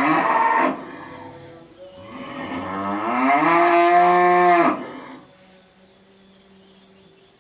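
Cow mooing: the tail of one call dies away in the first second. About two seconds in, a long moo of nearly three seconds follows, rising in pitch and then holding before it breaks off sharply. The uploader says the cow's calls sound odd because it is sick.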